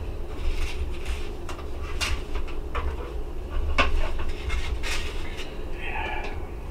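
Spoon clinking and scraping against a saucepan and a bowl as heated beef stew is dished out: a few sharp, separate clinks over a low steady hum.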